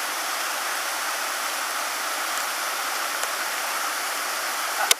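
Steady rush of water at a waterfall, even and unbroken, with a single sharp click near the end.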